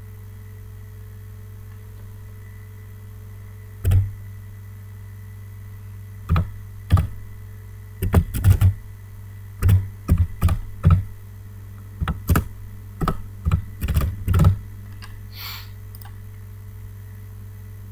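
Typing on a computer keyboard: irregular keystrokes, single and in quick clusters, from about four seconds in until near the end, over a steady low hum.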